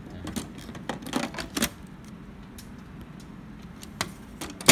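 Hard plastic clicks and knocks from a toner cartridge being handled in the open toner carousel of an HP Color LaserJet CP1025nw. A quick cluster of clicks in the first two seconds, then two sharp snaps near the end, the last the loudest.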